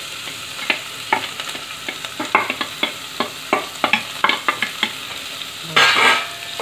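Onions and carrots stir-frying in hot oil in a heavy cooker pot: a steady sizzle with repeated sharp clicks of the stirring spoon against the pot, about two or three a second. A louder scrape comes near the end.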